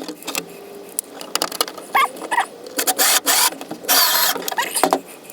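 Screws being backed out of the plastic cargo-bucket lip with a cordless drill in short bursts, with clicks and handling knocks between them. A few short high squeaks are mixed in, about two seconds in and near the end.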